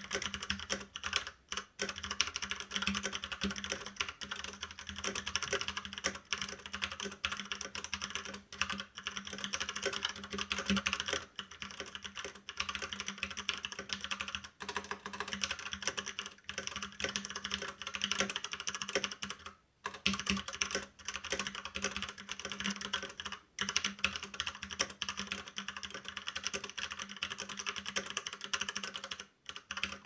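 Fast touch-typing on an Ajazz K870T mechanical keyboard with clicky blue switches: a dense, continuous clatter of key clicks at about 97 words per minute, broken by a few brief pauses.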